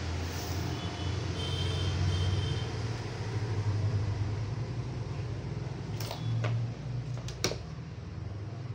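Steady low mechanical hum in the room, with fabric and tape-measure handling and two sharp knocks about six and seven and a half seconds in as a long ruler is set down on the table.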